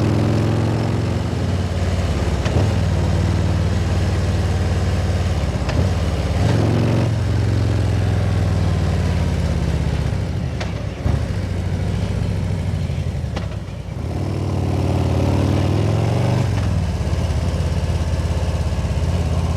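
Harley-Davidson Ultra Limited's V-twin engine running at road speed, its note rising and falling several times with the throttle, over a steady rush of wind on the jacket-mounted microphone.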